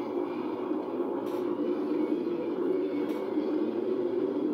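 Steady jet engine noise from the Thunderbirds' F-16 fighter jets flying in formation overhead.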